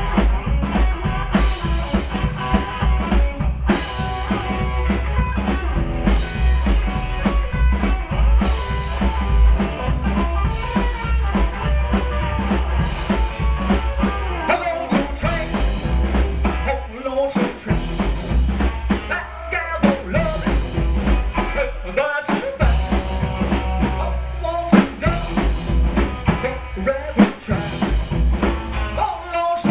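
Live rock and roll band playing, with a drum kit keeping a steady beat of bass drum and rimshots under the other instruments.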